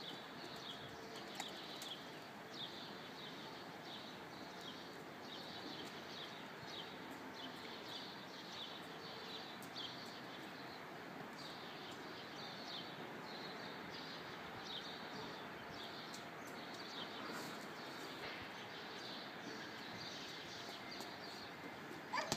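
Small birds chirping, short high chirps repeating irregularly about once or twice a second over a faint steady outdoor background, with a few light clicks.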